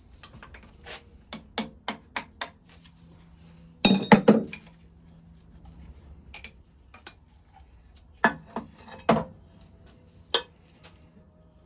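Metal tools tapping and knocking on metal engine parts: a string of light taps, then a loud burst of rapid knocks about four seconds in, and a few more strikes near the end. The sound comes from knocking a part out while dismantling the engine's pistons.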